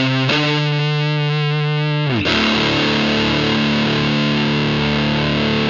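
Electric guitar played through a Palomar Sound Cholla op amp fuzz pedal with the gain at maximum. A held, heavily fuzzed note slides down in pitch about two seconds in, then a fuller chord is struck and left to sustain.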